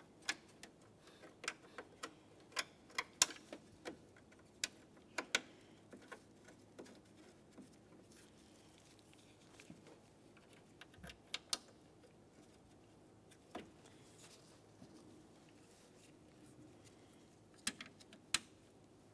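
Scattered light clicks and ticks of small mounting screws and hard plastic trim being handled as the screws are started by hand into the grille trim molding. The clicks come in a quick flurry over the first few seconds, a few more in the middle, and two more near the end.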